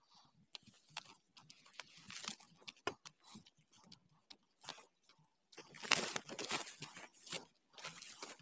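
Footsteps and the rustle and crunch of dry grass and brush as someone pushes along an overgrown footpath, in irregular bursts that are loudest a little past the middle.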